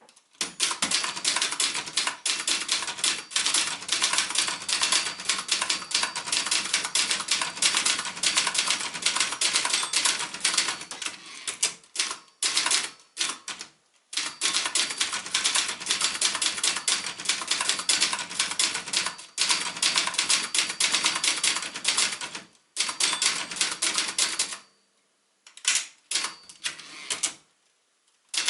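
Brother Charger 11 (JP-1) manual portable typewriter being typed on fast: rapid runs of key strikes clacking against the platen. The typing pauses briefly twice, once about halfway through and once near the end.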